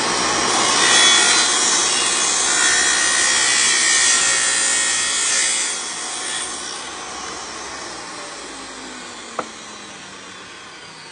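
Wet tile saw's diamond blade cutting a miter through Schluter metal tile trim: a loud, steady grinding for about six seconds. Then it fades away with a falling tone as the blade winds down. A single sharp click comes near the end.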